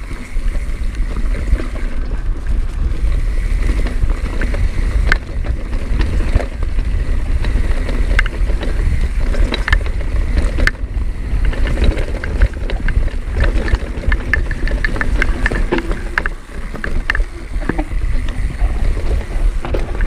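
Rapid, irregular knocking and tapping of a backpack part striking a GoPro's microphone, over a heavy low rumble of wind and jostling from a mountain bike riding a trail. The knocks grow denser in the second half.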